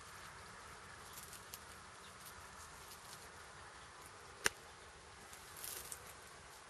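Faint outdoor ambience with a steady insect hum, a single sharp click about four and a half seconds in, and a brief rustle near the end.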